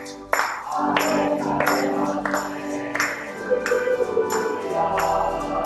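Voices singing a sacred song of praise with instrumental accompaniment, a tambourine struck on a steady beat about three times every two seconds.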